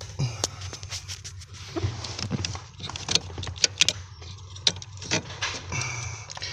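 Scattered sharp clicks, taps and plastic rattles with rustling, from hands twisting and pulling the brake light switch out of its bracket behind the brake pedal of a 2009 Infiniti G35.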